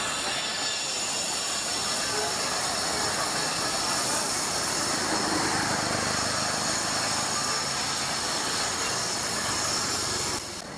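Busy street traffic noise with a steady high-pitched whine over it and people's voices faintly mixed in. The level drops suddenly near the end.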